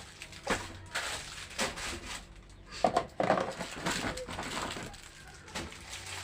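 Plastic bags crinkling and rustling as packs of meat are wrapped and tied, in a string of crackly handling noises with the loudest bout about three seconds in.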